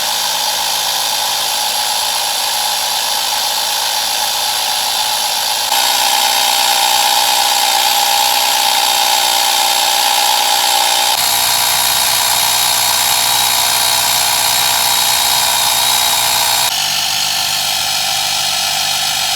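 Car air compressor running steadily with a loud, high-pitched motor whine while pumping butane through a DIY refrigeration loop. Its tone and level change abruptly three times.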